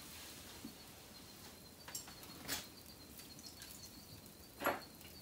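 Quiet background with a faint, high-pitched pulsing chirp, and two brief handling noises at the bench, the louder one near the end.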